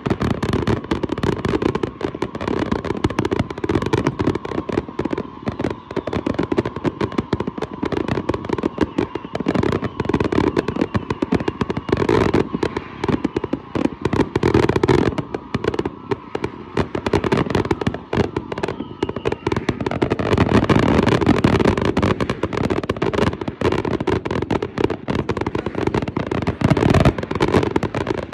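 Fireworks display firing a dense, continuous barrage: aerial shells launching and bursting in rapid, overlapping bangs with no let-up.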